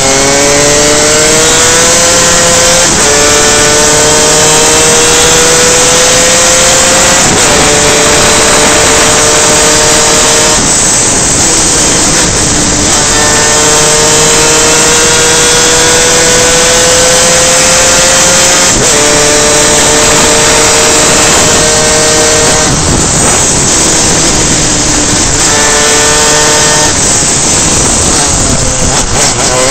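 Superkart's two-stroke engine running hard on track, its pitch climbing steadily and then dropping back in steps at each upshift, about five times. Twice the engine note briefly fades under the rush of wind before climbing again.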